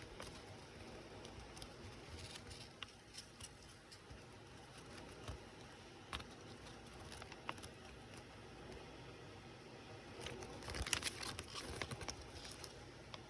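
Faint handling noise of small plastic pieces and paper packaging on a table: scattered light clicks and crinkles, with a busier run of them about ten to twelve seconds in.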